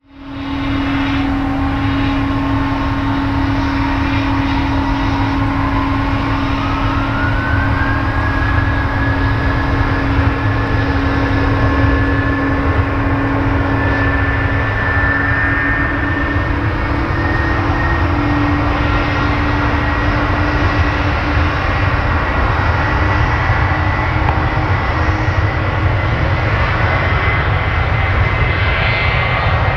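Airbus A320-200 jet engines spooling up and running at high thrust on the takeoff roll. A whine climbs in pitch about six to eight seconds in, then holds high and steady over a steady lower tone and a rumble that grows slowly louder as the jet comes closer.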